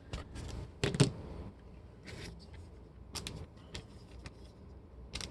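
Trading cards and a foil pack being handled: a string of short rustles and scrapes, the loudest about a second in.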